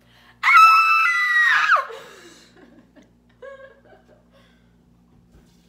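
A woman's loud, high-pitched excited squeal lasting about a second and a half and dropping in pitch at the end, followed by a short, faint murmur.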